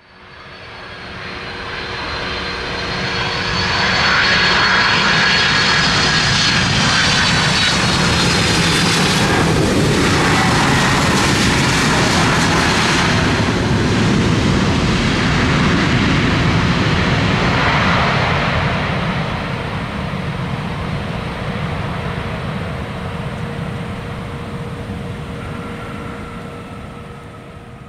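Boeing 767-300 jet airliner's twin turbofan engines on landing on a wet runway: a high falling whine and roar build over the first few seconds. The noise then holds loud for about a quarter of a minute under reverse thrust, spraying water off the runway. It slowly fades as the aircraft slows.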